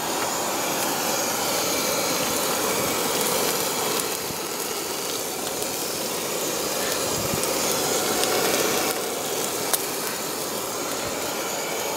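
Portable gas camping stove burner running with a steady hiss under a tray of food.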